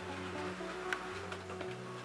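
Background music with a bass line that changes note about every half second, and a sharp click about a second in.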